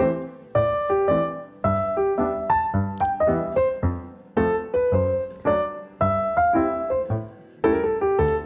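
Background piano music: chords struck at a steady pulse, about two a second, each ringing and fading before the next.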